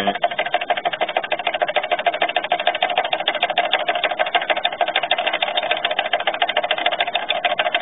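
A small engine running at a steady speed, with a rapid, even beat.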